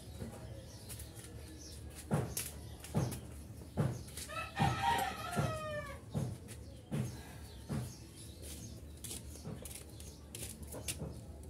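A rooster crows once, a call of about a second and a half starting about four and a half seconds in, among several sharp knocks.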